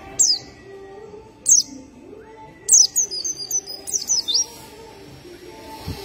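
Caged white-eye (Zosterops) calling: two short, high, falling calls in the first second and a half, then a quick run of high chirping notes between about three and four and a half seconds in.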